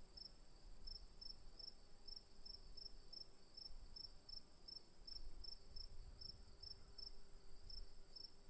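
Crickets calling in a chorus: one keeps up an unbroken high trill while another chirps in short, even pulses about three times a second. A faint low rumble runs underneath.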